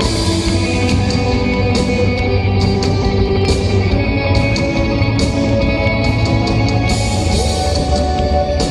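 Live rock band playing an instrumental passage with guitar over a steady low bass, with frequent sharp crashes in the highs.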